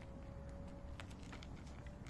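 Cat crunching dry kibble: an irregular run of small crisp clicks over a low background rumble.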